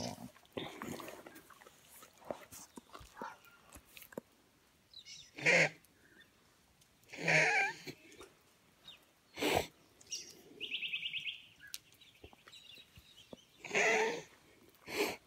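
A dog close to the phone makes about three short vocal noises, with a brief fast chatter in the middle and a few sharp knocks.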